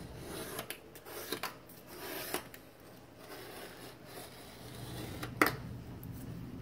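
Razor-blade scraper scraping hard-water deposits and grime off a polished granite countertop in short strokes, with one sharp click about five seconds in.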